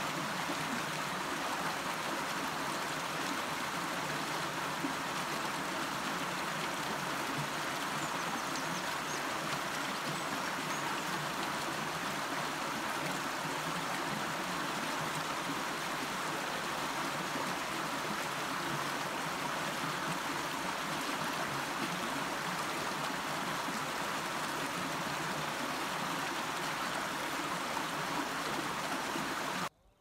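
Shallow rocky stream flowing over stones, a steady rush of running water that cuts off suddenly near the end.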